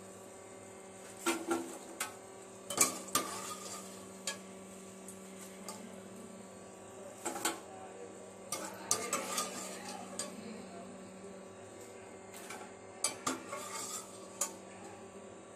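Wire-mesh skimmer clinking and scraping against the metal frying pot and bowl as fried potato chips are scooped out of the oil: scattered sharp clicks and clatters, several in quick clusters.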